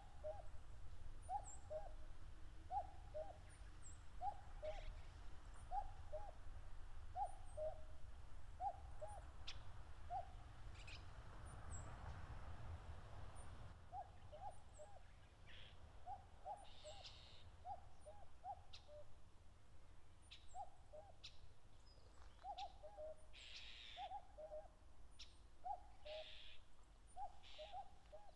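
Common cuckoo repeating its two-note, falling "cuck-oo" call, the male's territorial call, about once every second and a half, with a break of a few seconds near the middle. Faint high chirps and short calls of other small birds sound underneath.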